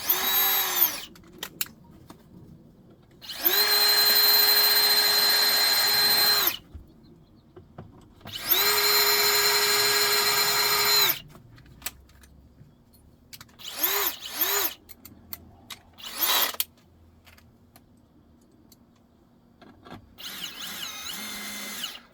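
Cordless drill drilling holes into wood. It runs in bursts: a short run at the start, two steady runs of about three seconds each, then a few short blips and a softer, wavering run near the end, each spinning up and winding down.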